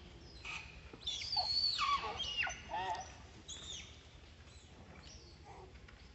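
Young long-tailed macaques screaming: a run of high, squealing calls that swoop down in pitch over a couple of seconds, one more arched squeal a little later, then fading away. They are the fear screams of juveniles fleeing a big adult male.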